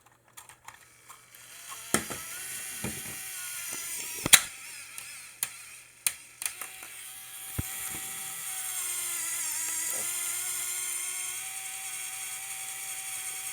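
Small Lego Technic electric motor whining as it drives the model's plastic gear train, with a few sharp clicks and knocks of the plastic parts, the loudest about four seconds in. From about six and a half seconds in the motor runs at a steady pitch.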